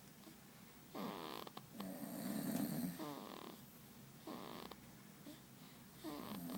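Baby snoring in sleep, a rasping snore with each breath, about five in all, the loudest about two seconds in.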